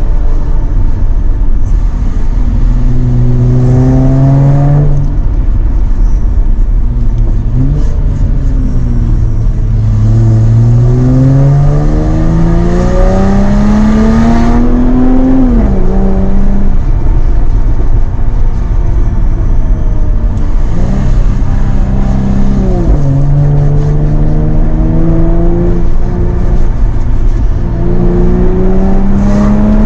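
Jaguar F-Type's engine pulling through the gears. Its pitch climbs under acceleration and drops at each gear change, several times over, between stretches of steadier running.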